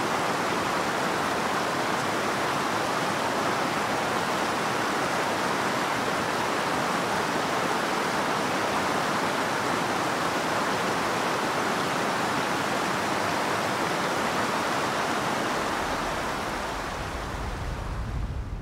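Shallow rocky mountain stream rushing steadily over stones. Near the end the rush fades and a low wind rumble comes in.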